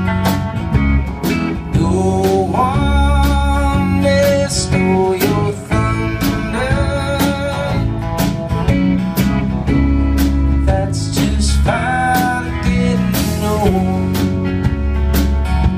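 Live band playing a song: a drum kit keeping a steady beat under electric bass, electric and acoustic guitars, with a man singing lead.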